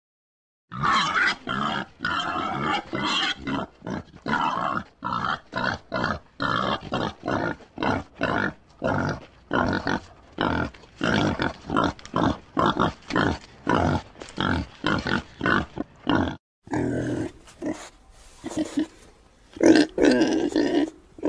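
Domestic pig grunting in a rapid, even series of short grunts, about two to three a second. About sixteen seconds in the series breaks off briefly and another recording of louder, more irregular pig grunts follows.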